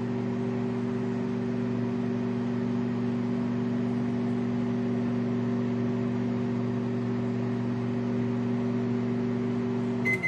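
Microwave oven running with a steady hum and fan noise, no popping heard from the popcorn bag inside. Near the end the hum cuts off and the oven beeps at the end of its cycle.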